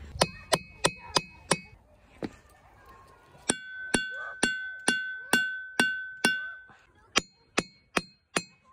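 Steel claw hammer striking ringing rocks, the diabase boulders that ring like metal when hit. There are five quick taps, a single tap, then seven strikes about two a second on one rock that sings with a clear sustained ring, then four more taps on another rock.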